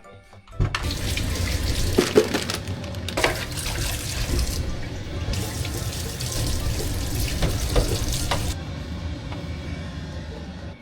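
Water running from a tap into a sink, starting about half a second in and running steadily, with a few louder splashes.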